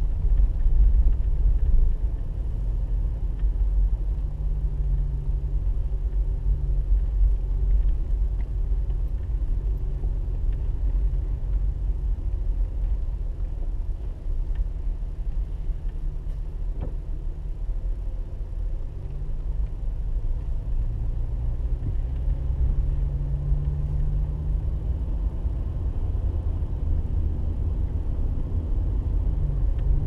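Car driving at low speed, heard from inside the cabin: a steady low rumble of engine and road noise. The engine note rises and falls as the car speeds up and slows.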